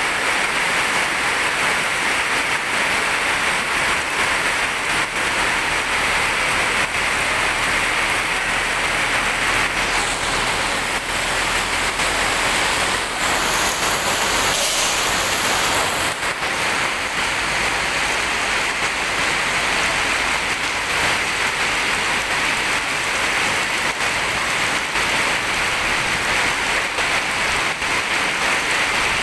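Heavy rain pouring steadily onto a wet road surface, a dense even hiss. About halfway through, a brighter hiss of tyres through standing water rises for a few seconds as traffic passes.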